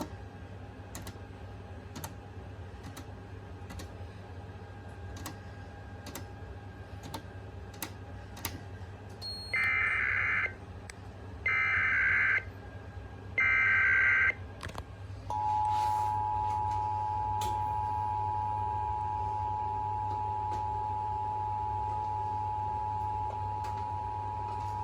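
SAGE EAS ENDEC sending an Emergency Alert System Required Monthly Test. About ten seconds in come three one-second bursts of digital SAME header data tones. They are followed by the steady two-tone EAS attention signal, held for about ten seconds. Before the header there is only a low hum and faint ticks about once a second.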